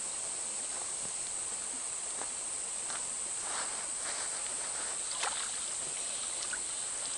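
Slide sandals crunching on creek-bank gravel in a few scattered steps, then light splashing as hands dip into cold creek water, over a steady high-pitched insect drone.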